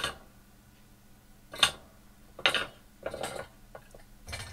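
Recorded clanks of a metal soldering iron stand dropped on a workbench, played back as short separate clips: five sharp metallic knocks with brief rattling rings, roughly a second apart.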